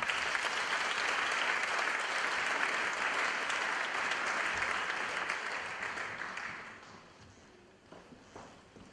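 Audience applauding in welcome; the clapping dies away about seven seconds in.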